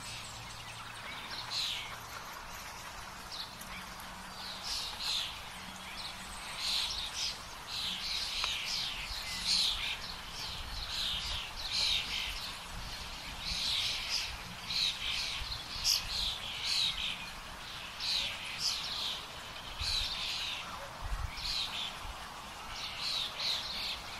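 Wild songbirds singing, a steady run of short, quick chirped notes over a faint low rumble.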